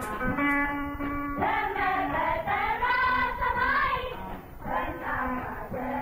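Background music: a singing voice over instrumental accompaniment with a steady held note.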